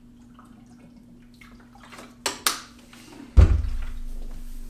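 Quiet room, then two short sharp noises about a quarter second apart, followed by a heavy thump with a low rumble that slowly fades.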